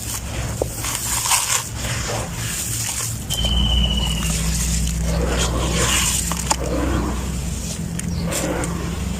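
Gritty sand-cement crumbling, in a run of irregular crunches. A steady low hum comes in about three seconds in, together with a brief high tone.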